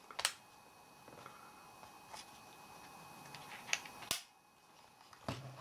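Handling noise: a handful of short, sharp clicks and taps as things are picked up and handled, the loudest a little past four seconds in.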